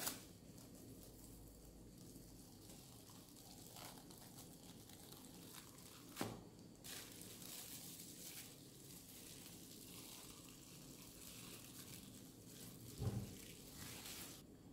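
Faint crinkling of plastic cling film being peeled off a frozen strawberry gelée disc, with a few light knocks and a soft thump near the end.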